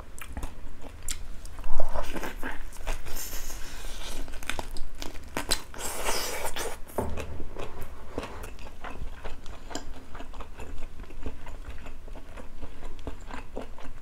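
Close-miked eating: a person biting and chewing boiled duck meat pulled off the bone, with wet smacking clicks and a couple of longer noisy sucking stretches.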